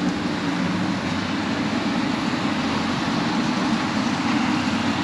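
Steady city street traffic noise with a constant low engine hum.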